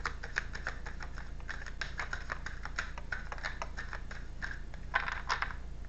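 Deck of tarot cards shuffled by hand: an irregular run of quick small clicks and flicks as the cards slap together, with a slightly denser flurry near the end.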